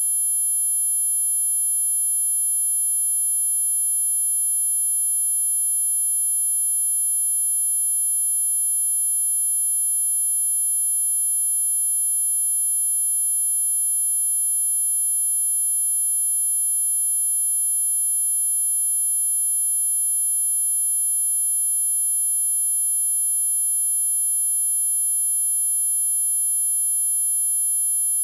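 A continuous, very high-pitched electronic sine tone of the mosquito-ringtone kind, held at one unchanging pitch, with fainter steady tones beneath it.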